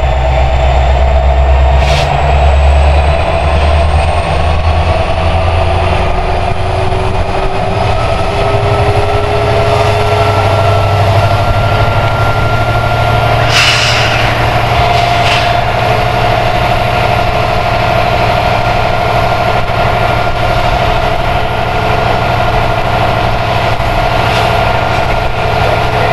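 Three EMD SD70ACE diesel-electric locomotives, each with a 16-cylinder EMD 710 two-stroke engine, working hard to restart a heavy loaded freight train uphill: a loud, steady diesel rumble with turbocharger whine that slowly rises in pitch. A few brief sharp sounds cut through, the longest about halfway through.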